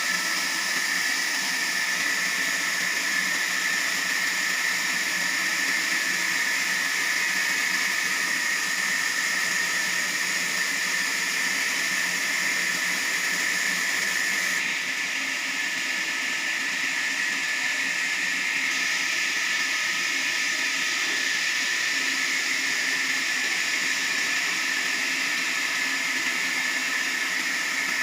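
Sawmill saw running steadily: a continuous, even hiss with a faint hum underneath, its top end dropping slightly about halfway through.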